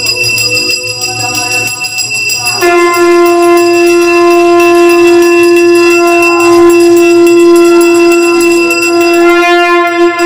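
Conch shell (shankha) blown in long, steady blasts. A first note fades out about two and a half seconds in, and a louder, slightly higher note follows and is held steadily for about seven seconds.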